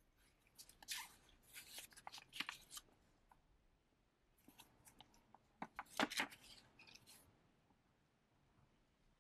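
An old paper first-aid pamphlet being opened and unfolded by gloved hands: two bouts of crisp paper crinkling and rustling, one about a second in and one around five to seven seconds in.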